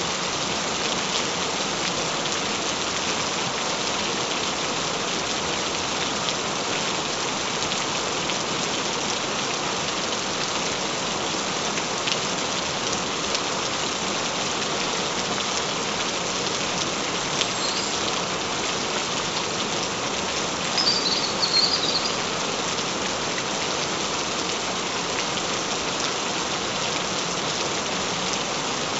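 Steady gentle rain falling on a surface: an even hiss dotted with the ticks of single drops. A brief high chirp sounds about two-thirds of the way through.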